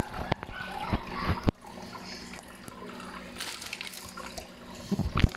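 Tap water running into a sink while fruit is washed, with several sharp knocks and clicks of things being handled, a few near the start and a quick cluster near the end.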